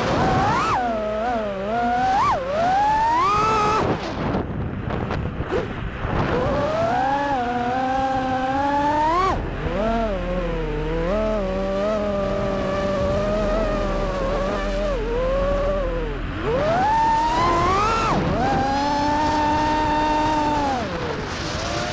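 FPV racing quadcopter's motors and propellers whining, the pitch rising and falling with the throttle, with several quick climbs and a steadier stretch in the middle.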